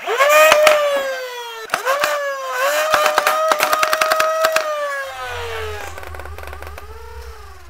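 Solenoid-powered Nerf flywheel blaster with a Daybreak flywheel cage, firing. The flywheel motors spin up to a high whine whose pitch dips each time darts pass through, while the solenoid pusher clicks rapidly in bursts. The flywheels then wind down, and a low hum comes in near the end.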